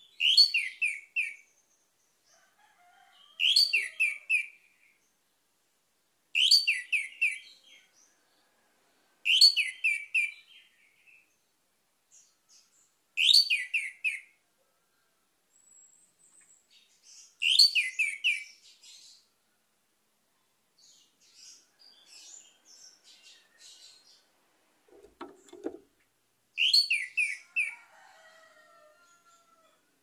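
Orange-headed thrush (anis merah) singing: short, loud phrases of a few quick falling whistled notes, repeated every three to four seconds, with softer twittering in a longer pause late on.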